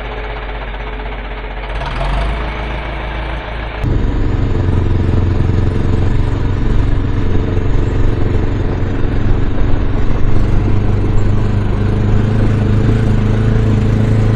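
Farm tractor engine running steadily. About four seconds in it becomes suddenly louder and heavier and keeps running at that level.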